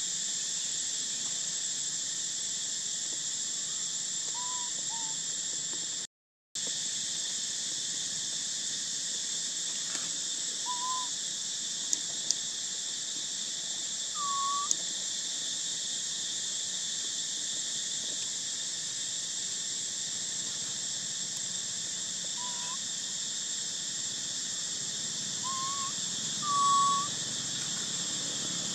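Steady high-pitched drone of forest insects, with a few short hooting calls over it, one here and there, the loudest near the end. The sound drops out completely for about half a second around six seconds in.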